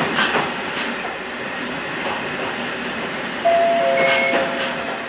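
Toyama Chiho Railway 14760-series electric train running, heard from the driver's cab: a steady rolling rumble with sharp clicks of the wheels over rail joints. About three and a half seconds in, a steady pitched tone sets in and the sound gets louder.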